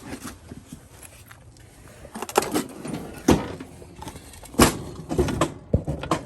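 A Toro TimeMaster walk-behind mower being handled and tipped over: a series of loud clunks and knocks with metallic rattling, the heaviest about two and a half, three and a half and four and a half seconds in.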